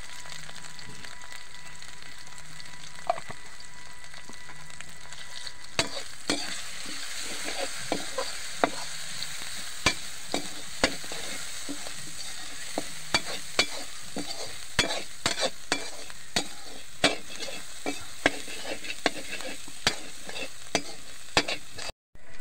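Onion and spices frying in oil in a metal kadhai: a steady sizzle. From about six seconds in, a metal spoon clinks and scrapes irregularly against the pan as the mixture is stirred.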